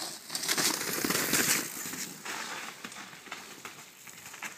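A downhill mountain bike riding past close by on loose, wet dirt: tyres crunching and skidding with a rattle of the bike, loudest about a second in, then fading as it rides away.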